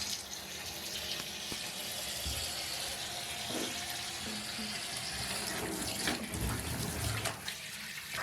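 Cold water running steadily into a bathtub from the tap, rinsing a soaked fleece cage liner, with a few soft knocks of the wet fabric being handled in the second half.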